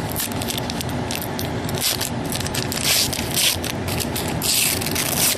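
Trading cards and plastic being handled: a run of small crinkles and scrapes, with two longer rustles about three and about four and a half seconds in, over a steady low background rumble.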